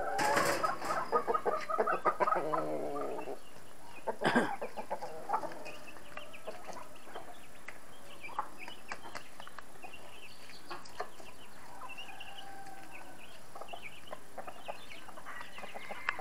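Free-range chickens: a loud, drawn-out squawking call from one bird over the first three seconds, then scattered soft clucks and short high chick peeps. A sharp knock sounds about four seconds in.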